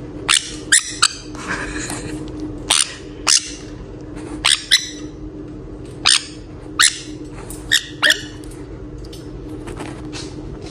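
Pet parrot giving short, loud squawks, about a dozen scattered irregularly, over a steady low hum.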